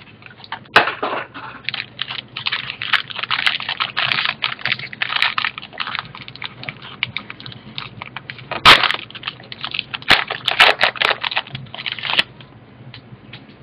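Plastic trading-card pack wrapper crinkling and tearing as it is worked open by hand, a run of crackles and sharp snaps with the loudest snap about two-thirds of the way through, stopping shortly before the end.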